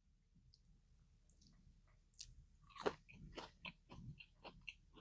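A bite into crispy fried popcorn chicken, then chewing it with a run of short crunches, starting about two seconds in.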